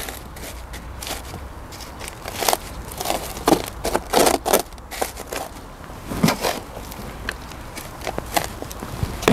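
Compost mixed with perlite being poured from a plastic potting scoop into small pots: irregular gritty rustles and scrapes.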